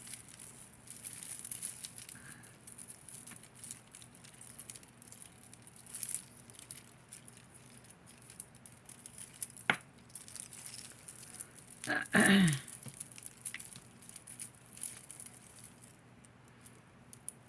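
Tangled costume jewelry and chains being handled and sorted by hand: small scattered clinks, rattles and rustling. About twelve seconds in there is a short, loud vocal sound that falls in pitch.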